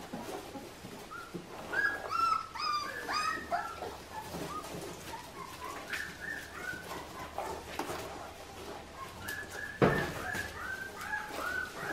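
Four-week-old Australian Shepherd puppies whining and yipping in short, high cries that fall in pitch, in runs about two seconds in, around six seconds, and again near the end. A single sharp thump comes just before the last run.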